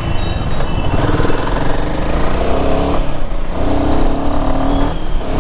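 Royal Enfield Himalayan 450's single-cylinder engine running under way. Its pitch climbs, drops at a gear change about three seconds in, then holds steadier, with another brief break near the end.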